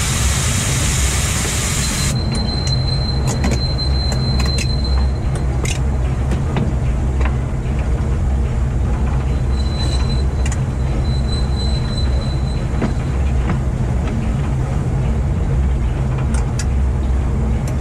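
Standard-gauge heritage train running along the track: a steady low rumble with scattered clicks from the wheels on the rails, and a thin high wheel squeal heard twice, first about two seconds in and again near the middle. A loud hiss stops abruptly about two seconds in.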